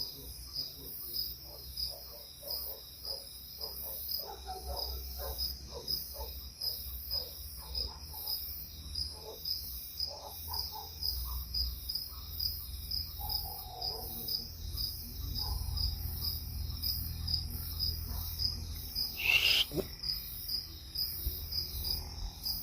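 Night insects chirping in a steady, even rhythm of about two high chirps a second. Fainter, irregular lower calls come and go in the first half, and a single brief, louder sweeping sound comes near the end.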